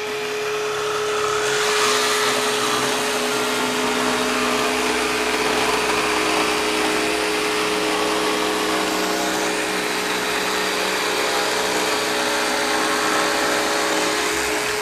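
Festool PSC 420 Carvex 18V brushless cordless jigsaw cutting plywood, with a small dust extractor running on its dust port. The two make one steady, loud machine noise that gets a little louder about two seconds in as the saw bites into the cut.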